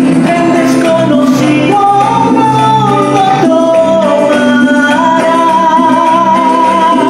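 A man singing a ballad over a backing track, ending on a long held note with vibrato.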